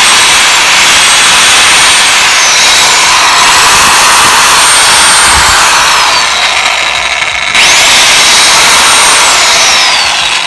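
1,500-watt Lotus circular saw run free without cutting. Its brushed motor whines up to speed with each press of the trigger, holds, and winds down in falling pitch when it is released, about three times.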